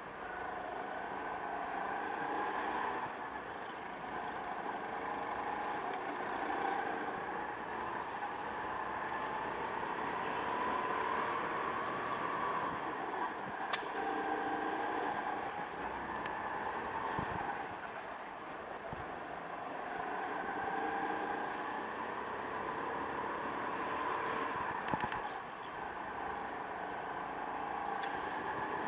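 Go-kart engine heard from on board, revving up and dropping back again and again as the kart laps, its pitch rising and falling every few seconds, with a few sharp clicks.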